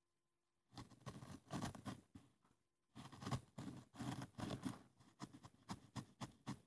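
A wooden stick scraping and poking in a small plastic funnel, working glitter sand down into a plastic sand-art bottle. The quick scratchy rustle starts about a second in and pauses briefly midway.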